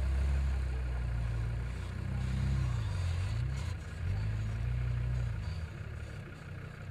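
Engine of an off-road SUV working up a steep dirt bank, its note rising and falling with the throttle, quieter towards the end.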